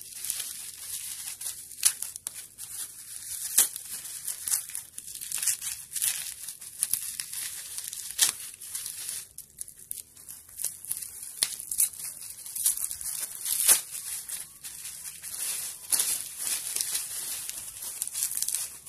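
Plastic bubble wrap crinkling and crackling as it is handled and unrolled from around a wristwatch, in many irregular sharp crackles.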